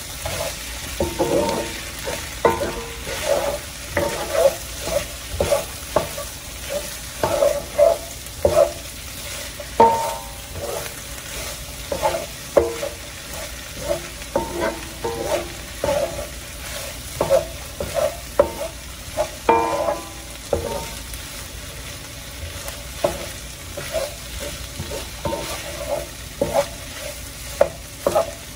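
Wooden spoon stirring and scraping vegetables in a stainless-steel wok, with repeated irregular strokes that make the pan ring briefly, over a steady sizzle of frying.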